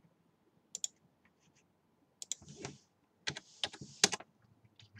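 Computer keyboard typing: a few separate keystrokes, then a quick run of several about three seconds in, as a dimension value is typed into CAD software, with a soft hiss between the clicks.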